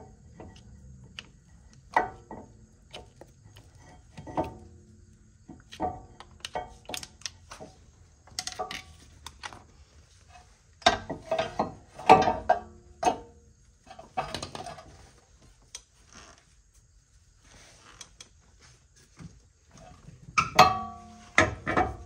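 Irregular metallic clinks and knocks of hand tools and brake caliper parts being handled, many with a brief ring, with bursts of louder clanks about halfway through and again near the end.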